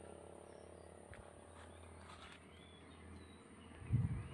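Faint steady high-pitched insect trill, like crickets, in quiet outdoor ambience, with a few faint short chirps. Near the end come a few low thumps on the microphone.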